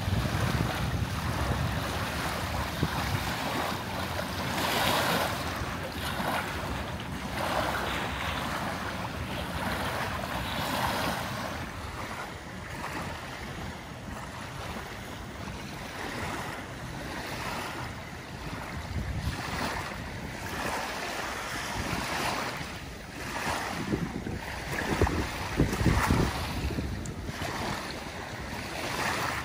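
Small waves lapping and splashing at the lake shore in irregular surges, with wind rumbling on the microphone, strongest at the start.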